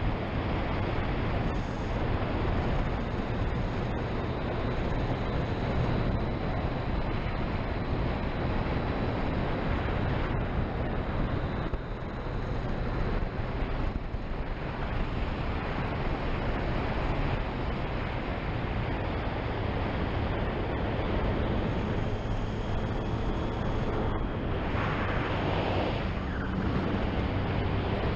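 Wind rushing over a helmet-mounted microphone at riding speed, with a Triumph Street Triple's three-cylinder engine running steadily underneath.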